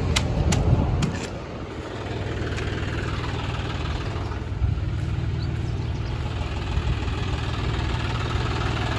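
A John Deere tractor's diesel engine runs with a steady low rumble while pulling a loaded trolley. A few sharp clicks sound in the first second.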